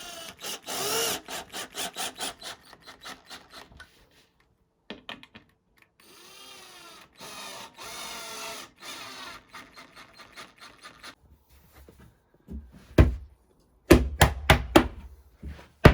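Cordless drill-driver working screws into flat-pack furniture panels in two spells, with a few sharp knocks on the wood near the end.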